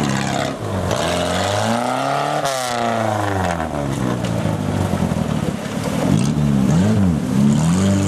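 Modified Suzuki off-road 4x4's engine revving up and down under load. It climbs to a high peak about two and a half seconds in, then drops, and gives quick rev blips near the end.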